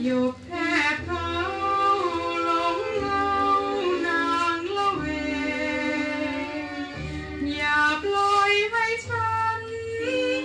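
A woman singing a slow Thai song, drawing out notes with vibrato, over orchestral accompaniment with a bass line, played from a vinyl record.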